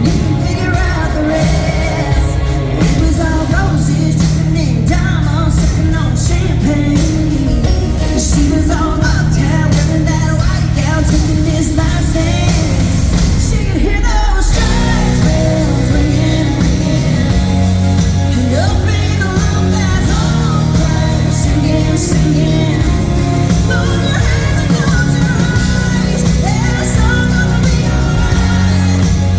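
Live concert performance of a country song: a woman singing lead over a full band, with a short break in the sound about halfway through before the band comes back in.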